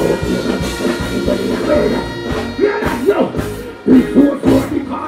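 Live dancehall show: a male deejay chanting into a microphone over a loud backing riddim through the sound system.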